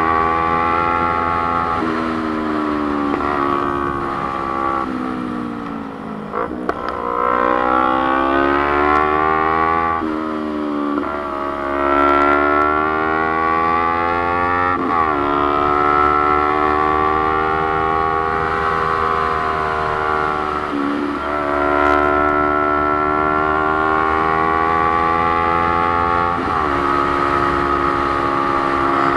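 Motorcycle engine under way at speed, its pitch climbing as it pulls and dropping abruptly at several gear changes, with steady wind rush over the onboard camera.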